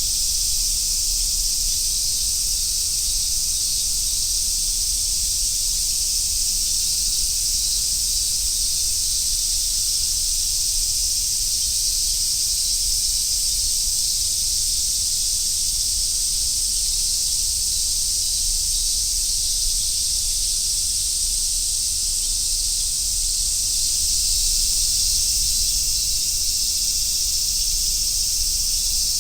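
A chorus of Japanese summer cicadas making a dense, steady, high hiss that never breaks.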